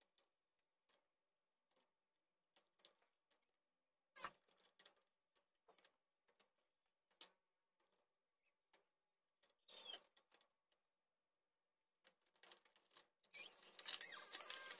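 Near silence broken by faint clicks and scrapes of a plastic portable radio case and its circuit board being handled and fitted back together: one sharp click about four seconds in, a short scrape near ten seconds, and a run of small clicks near the end.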